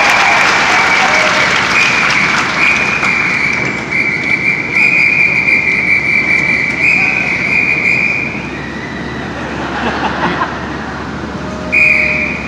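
Theatre audience applauding, with a long high whistle held over it that shifts pitch in small steps and stops about eight seconds in. After that the clapping is quieter, and a short whistle comes again near the end.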